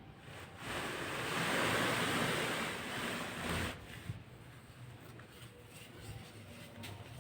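Dry, powdery baking soda being worked by hand, giving a soft hiss that swells for about three seconds, then fainter crackles and small clicks.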